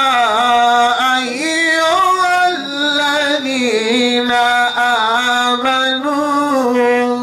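A man's solo voice chanting devotionally into a microphone, melodic and unaccompanied, holding long notes that step up and down with ornamented turns.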